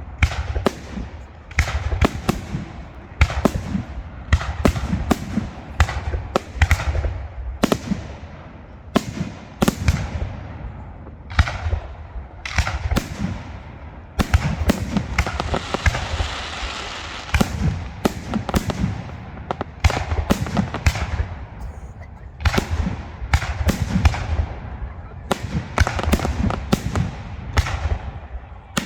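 Aerial fireworks display with shells bursting one after another in a rapid run of loud bangs, each followed by a short fading echo. About halfway through there is a stretch of dense hiss.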